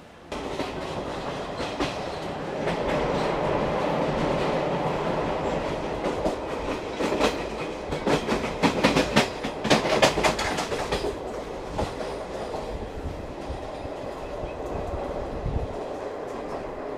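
ICF passenger coach running at speed, with a steady rolling rumble and clickety-clack as the wheels pass over rail joints. A dense run of sharp, closely spaced clacks comes in the middle, then the rhythm thins out again.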